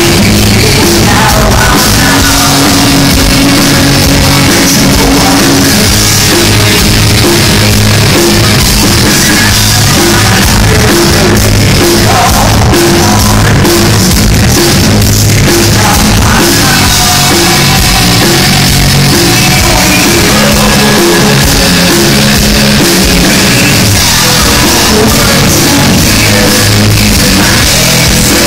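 Hard rock band playing live, loud: a singer over electric guitar and drums, with a steady beat.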